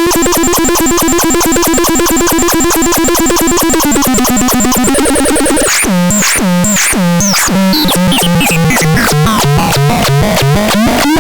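Synthesizer demo: a buzzy, rapidly pulsing tone held at one pitch, stepping down to a lower pitch about four seconds in. From about six seconds it changes to repeated downward-swooping chirps, about two a second.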